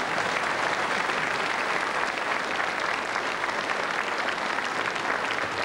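Theatre audience applauding, a dense steady clatter of many hands clapping at an even level.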